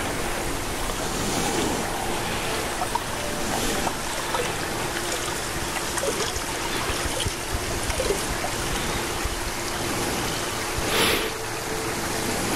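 Shallow creek water running and trickling over stones, steady throughout, with a faint steady hum underneath and a brief louder rush near the end.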